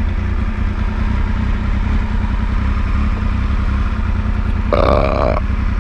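Motorcycle engine running steadily as it is ridden, with a short pitched sound about five seconds in.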